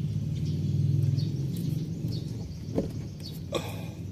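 Faint birds chirping over a steady low hum, with two short clicks near the end as the quick-release connector on the BMW X5 E53's fuel-filter line is pressed.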